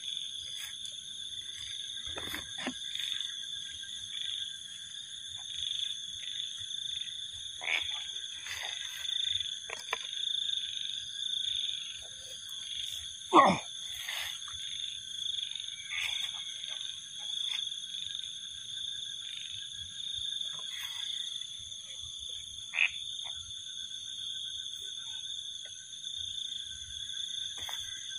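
A steady chorus of calling frogs: several unbroken high-pitched trills at different pitches, with scattered short calls over them. The loudest call, about halfway through, drops steeply in pitch.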